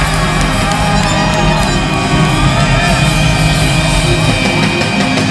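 Live rock band playing loud and steady, with dense sustained instrument tones and no break.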